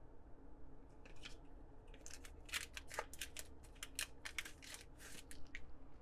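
A foil hockey card pack crinkling and tearing as it is opened by hand, with the cards rustling as they slide out. It is a quick run of short, crisp rustles and crackles from about a second in until shortly before the end.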